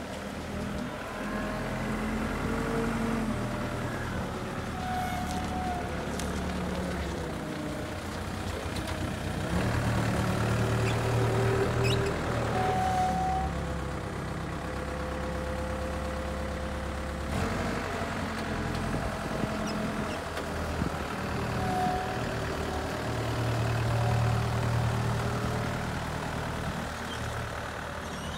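Yale GDP50MF diesel forklift's engine running while the truck drives and maneuvers, revving up in two louder stretches about a third of the way in and again near the end.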